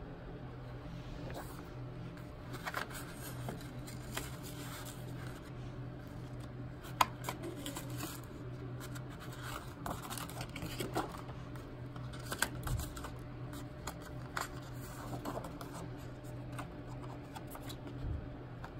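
Sheets of printed paper rustling and being handled, with scattered soft crinkles and taps, over a steady low hum.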